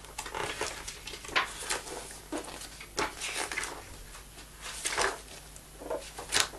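Pages of a book being turned and handled: a string of short, irregular rustles and soft knocks, about eight in all.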